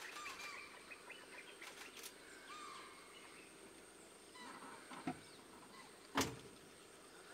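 Birds chirping over faint outdoor ambience, with a small sharp knock about five seconds in and a louder crack about a second later.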